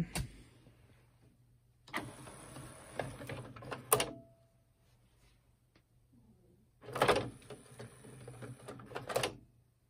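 Aiwa NSX-350M CD changer's tray mechanism running twice, each time about two seconds of motor whirring that starts and ends with a sharp click: the tray opening, then closing with the disc in place.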